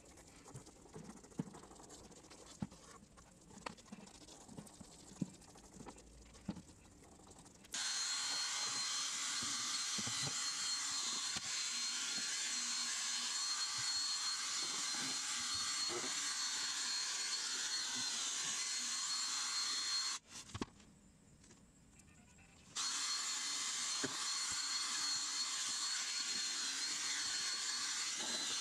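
Cordless drill spinning a carpet brush attachment to scrub shampoo into car floor carpet: a steady high motor whine with scrubbing noise. It starts suddenly about eight seconds in, stops for a couple of seconds around twenty seconds, then runs again. Before it starts there are only faint scratches and taps.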